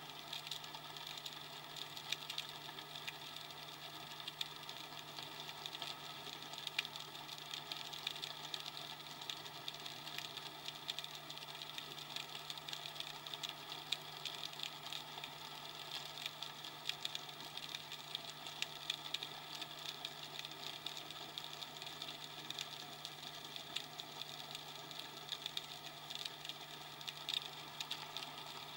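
Underwater ambience picked up by a spearfisher's camera: a steady low hum under a continuous crackle of fine clicks.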